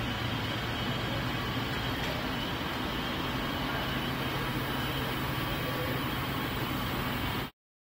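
Machine-shop background noise: a steady low hum and hiss with a faint, steady high whine, unchanging throughout; it cuts off abruptly near the end.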